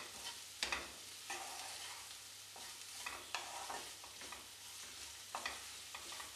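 Sliced onions frying in butter in a nonstick pan with a faint sizzle, while a spatula stirs and scrapes them around the pan in a few irregular strokes. The onions are being sautéed just until they soften, not browned.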